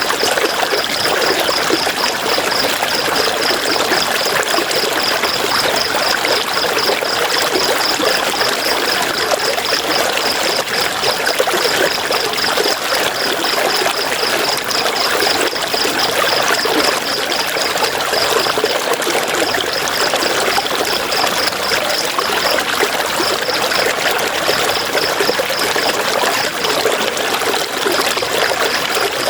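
River water rushing and splashing over rocks, a steady, even flow. A high-pitched, rapidly pulsing note repeats over it, with a few short breaks.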